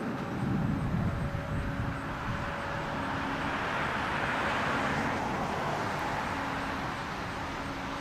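Road traffic: a passing vehicle's noise swells to a peak in the middle and fades again, over a low rumble.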